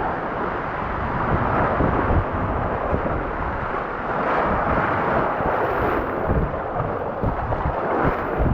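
Rushing floodwater of a river in whitewater, a steady churning noise, with wind buffeting the microphone in irregular low thumps.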